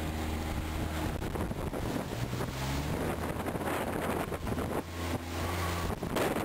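Side-by-side utility vehicle's engine running steadily as it drives through water, with water splashing around the wheels and wind buffeting the microphone.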